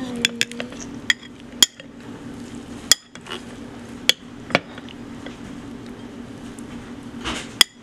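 A metal spoon clinking against a glass bowl, about eight sharp, irregular taps, each with a brief ring.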